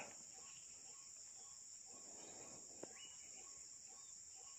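Faint, steady chorus of crickets and other insects, a high continuous trill with soft repeated chirps beneath it. A single small click about three seconds in.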